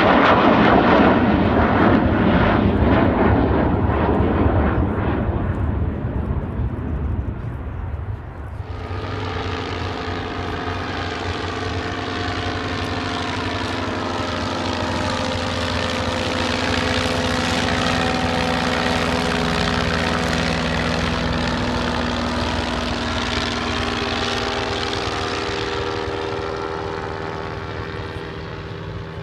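Avro Vulcan XH558's four Olympus turbojets give a loud, rough roar as it flies past low. About eight and a half seconds in, this gives way to the steady drone of early biplanes' piston engines, several tones at once, which fades near the end.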